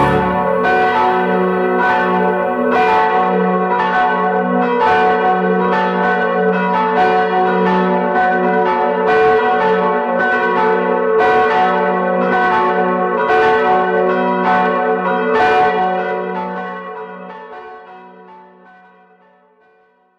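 A peal of church bells ringing, several bells struck about one to two times a second. The strokes stop near the end and the ringing dies away over the last few seconds.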